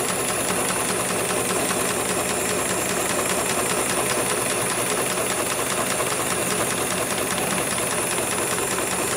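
HIGHTEX 7273CNC automatic industrial pattern sewing machine running, its needle stitching a pattern into a sling strap with a fast, steady clatter of strokes.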